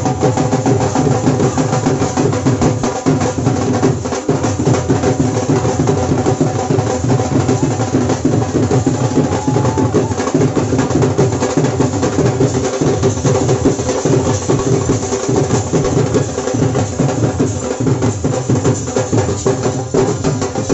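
Himachali dhol drums playing a dense, driving dance rhythm, with a steady held tone sounding over the beat.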